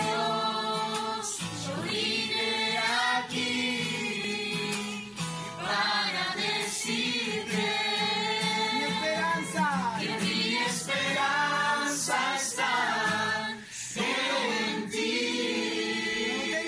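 A church congregation singing a worship song together in Spanish, many voices at once.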